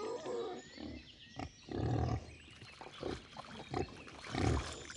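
Wild boar grunting in several short, low grunts, the loudest about two seconds in and near the end.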